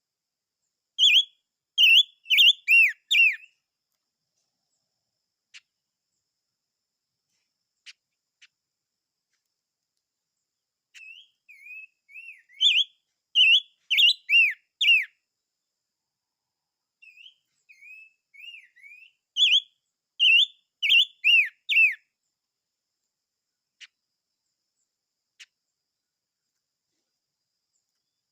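A songbird, the 'chim ngũ sắc' (five-coloured bird), singing in three bouts of quick, clear whistled notes that swoop up and down. The bouts fall about a second in, around the middle and a little after. A few faint clicks sound in the pauses between them.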